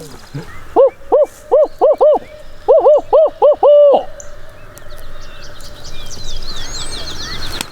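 Hunter's imitation of a barred owl's 'who cooks for you, who cooks for you-all' hoot: two loud phrases of four and then five notes, the last note drawn out. It is an owl locator call meant to make wild turkey gobblers shock-gobble.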